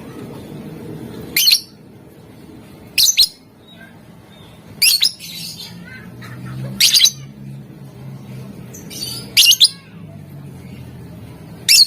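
Lovebird giving short, shrill chirps about every two seconds, six times, some of them double chirps, over a steady low background noise.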